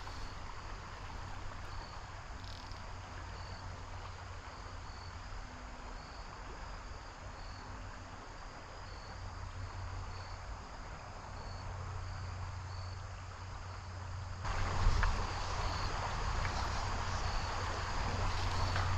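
Crickets chirping in a steady even rhythm, a little more than one chirp a second, over the constant rush of a creek. About three-quarters of the way through, the water noise suddenly becomes louder.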